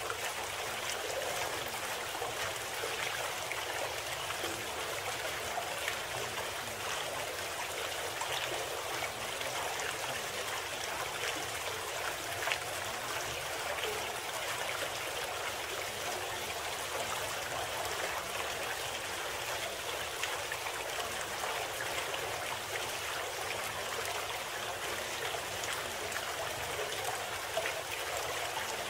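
Steady running water, like a babbling stream, with faint irregular drips and splashes.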